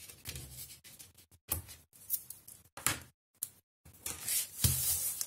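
Hands laying double-sided tape along the edge of a cardstock sheet and pressing it down: a string of short dry paper rustles and rubs, with a louder, longer rustle about four seconds in.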